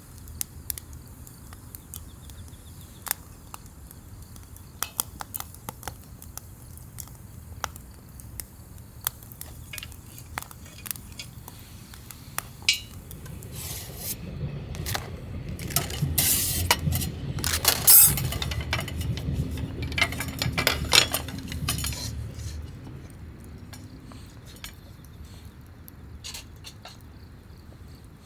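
Light metal and glass clinks and knocks of camp cookware and utensils being handled. About halfway through, a low rumble swells and fades over several seconds, fitting a passing train.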